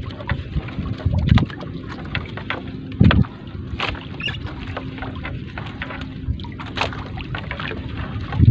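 Three-ply shrimp net being hauled by hand over a wooden boat's gunwale: scattered rustles and light knocks against the hull. Wind buffets the microphone, with two louder low thumps about one and three seconds in.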